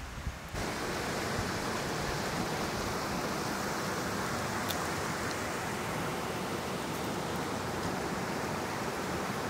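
A steady, even rushing hiss that starts abruptly about half a second in and holds level throughout.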